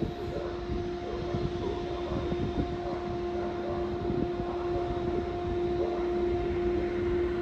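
Train at a station running with a steady humming tone over a low rumble, growing slowly louder.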